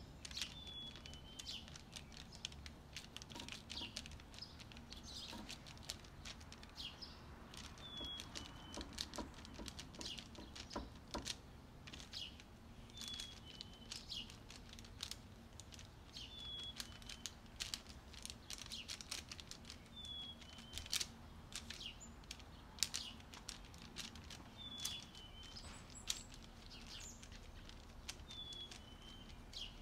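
Faint crinkling and crackling of baking paper as a hand presses seed-topped dough balls flat on a lined baking tray. A short high chirp repeats about every four seconds.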